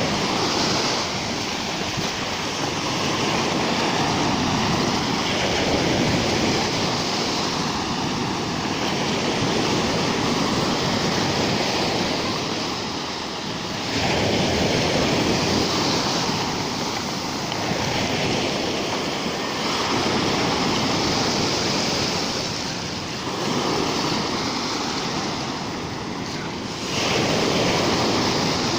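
Rough sea: waves breaking and washing onto the shore in a continuous rush, swelling louder every several seconds and easing off in between.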